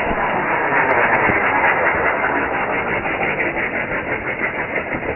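Big firecracker hissing steadily as it burns on the water surface, pouring out smoke. The hiss is loud and muffled and eases off slightly toward the end, with no bang.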